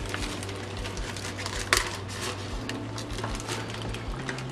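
Plastic bags crinkling and rustling as hands work bagged corals down into a bucket, with a sharper crackle about a second and a half in, over a steady low hum.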